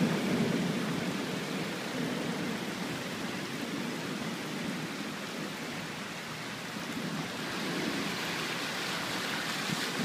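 Heavy rain from a thunderstorm pouring down in a steady rushing hiss.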